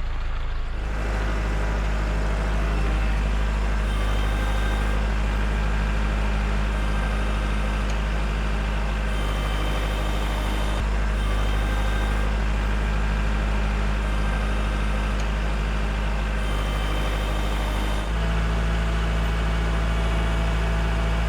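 Kubota L4701 tractor's diesel engine running steadily while pushing a truck, its engine note changing about three-quarters of the way through.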